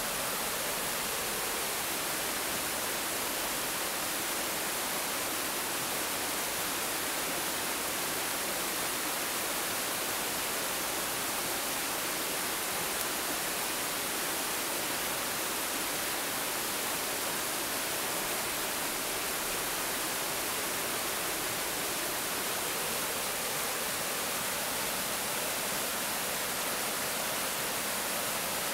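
White water rushing steadily down a rocky weir: a constant, even hiss with no breaks.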